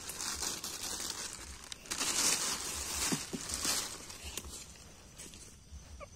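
Dry rustling and crinkling from hands handling things, loudest from about two to four seconds in, then fading.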